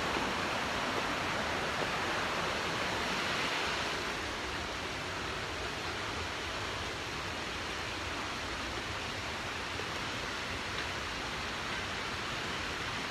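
Steady rushing of falling water from a woodland waterfall and creek, easing a little about four seconds in.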